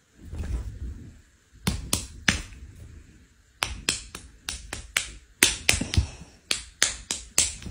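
A run of sharp snapping clicks, about fifteen, coming in quick groups of two or three from about a second and a half in, after a soft rustle.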